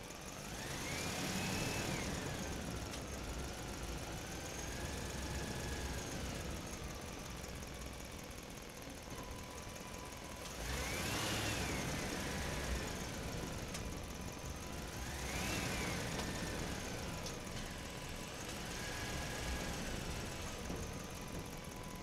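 An engine running with a low rumble, revving up and dropping back four times, about a second in, near the middle, and twice towards the end.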